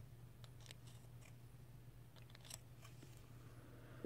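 Faint snips and clicks of small scissors trimming cotton wick, a few separate cuts over a low steady hum.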